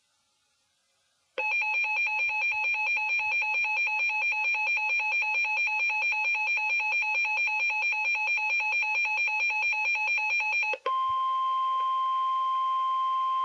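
Electronic weather-alert alarm: a rapidly pulsing beep with several pitches at once sounds for about nine seconds. After a short break it changes to the steady single-pitch 1050 Hz NOAA Weather Radio warning alarm tone, which announces that a new warning is about to be read.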